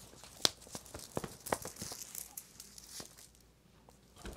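Packaged snacks being rummaged through in a box, their plastic wrappers giving a few short, scattered crinkles over the first three seconds.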